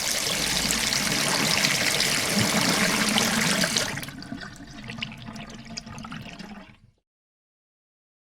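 Washing machine water rushing loudly, dying down after about four seconds to a quieter trickle with small drips and clicks, then cutting off about seven seconds in.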